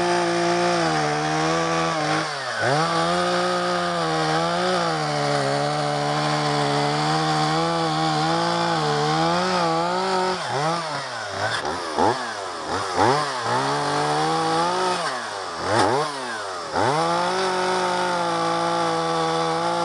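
Two-stroke chainsaw running at high revs, cutting a notch into a tree trunk. Its engine pitch sags and climbs back several times, sharply around the middle and again a few seconds before the end.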